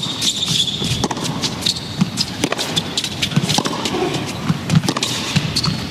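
Tennis ball bounced repeatedly on a hard indoor court in a pre-serve routine, a run of short sharp knocks, over arena crowd noise.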